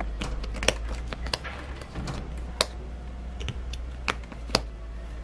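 Wooden jigsaw puzzle pieces clicking and tapping against each other and the tray as a small child's fingers fit them in: irregular sharp clicks, the loudest at moments well apart.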